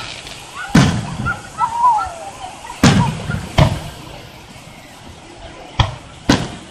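Aerial fireworks shells bursting: five sharp booms, the last two close together near the end, with crowd voices in the background.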